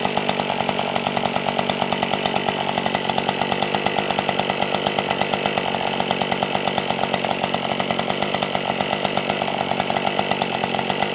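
Earthquake E43 one-man post-hole auger's 43cc two-stroke engine idling steadily on its first start, being run for about half a minute to warm up and get oil through to the piston.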